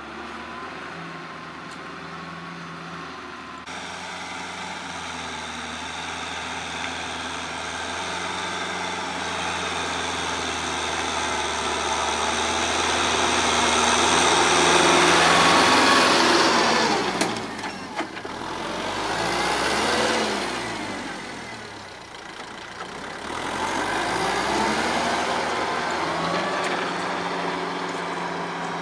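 Kubota L5018 tractor's diesel engine running steadily under load as it drives a rotary tiller through dry field soil. It grows louder to a peak about halfway through as the tractor comes close, then dips and rises again.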